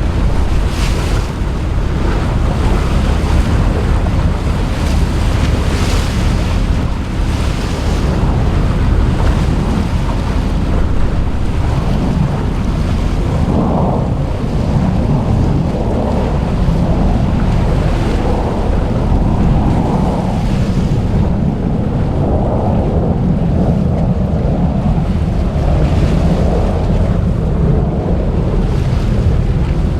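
Boat under way on open water: a steady rush of wind and water, with heavy wind buffeting on the microphone.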